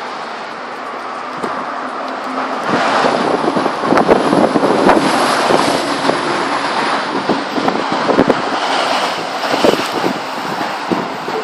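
Gale-force wind gusting hard across the microphone, a rushing noise that swells to its loudest around the middle, with many sharp buffeting knocks on the mic.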